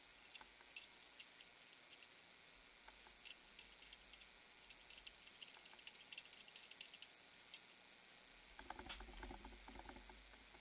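Near silence with faint scattered clicks, thicker in the middle, and a brief soft rustle near the end.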